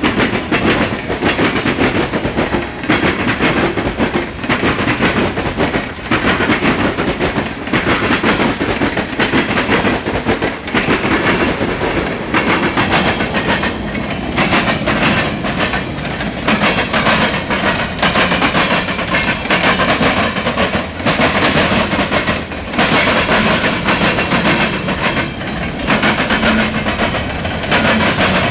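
Freight train cars rolling past, their wheels clattering in a continuous, rapid rhythm over the rail joints.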